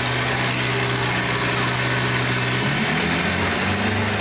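Farm tractor engine running hard under load as it drags a weight-transfer pulling sled. The engine note is steady at first, then shifts and wavers in pitch about two and a half seconds in.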